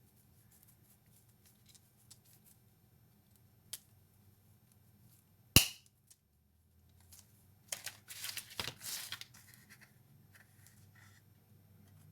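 Wire cutters snipping through the wire stem of an artificial berry spray, with one sharp, loud snap about halfway through. A small click comes before it, and a short stretch of rustling and clicking follows as the pieces are handled.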